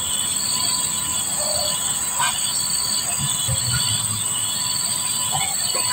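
Insects droning steadily in a high pitch, with a low rumble that swells and fades twice.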